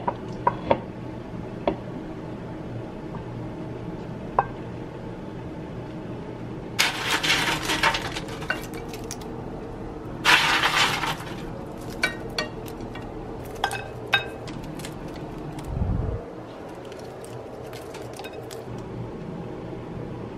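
Crisp homemade croutons rattling and crunching as they are scooped by hand off a paper-towel-lined baking sheet, in two short bursts about a third and about halfway through. Scattered light clinks of dishes and a dull thump about three-quarters through.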